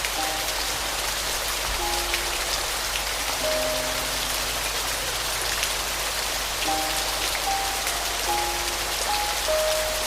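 Steady rain falling on a surface, a dense even hiss with scattered distinct drops, under soft piano notes played a few at a time.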